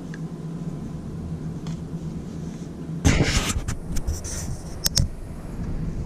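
Hands handling items: a short rustle about three seconds in, then a few sharp clicks near five seconds, over a steady low hum.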